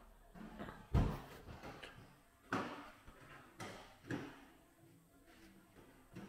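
A few separate knocks and clunks with some scuffing between, the loudest a deep thud about a second in, then sharper knocks about two and a half, three and a half and four seconds in.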